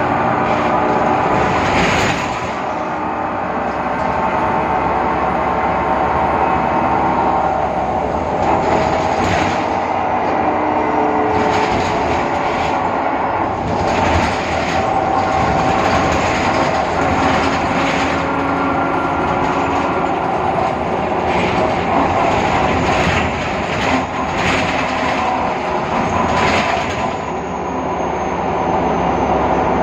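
Inside a BredaMenariniBus Avancity Plus city bus under way: a whining tone from the rear-axle differential shifts in pitch as the bus speeds up and slows down, over the running noise and occasional knocks and rattles of the body. The owner blames the whine on the differential.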